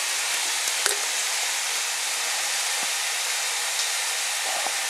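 Chicken breast sizzling steadily on a hot grill pan, an even frying hiss, with one sharp click about a second in.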